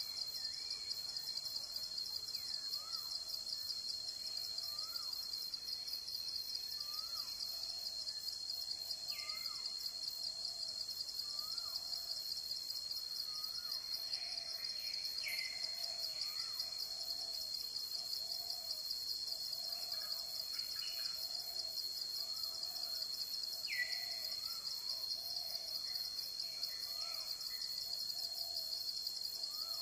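Tropical forest ambience: a steady, rapidly pulsing insect chorus, with birds calling over it in short rising-and-falling notes. From about halfway a low note repeats regularly, about once a second, like a soft hoot.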